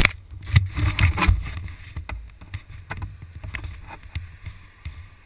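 Wind buffeting the microphone of a camera on a moving motorcycle: irregular thumps over a low rumble, heaviest in the first second and a half and easing off as the bike slows to a stop.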